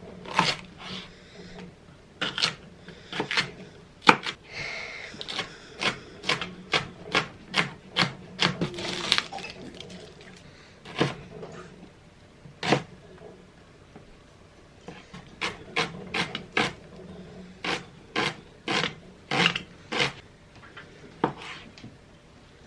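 Kitchen counter handling sounds: irregular sharp taps and clicks with stretches of rubbing and rustling as food and dishes are handled.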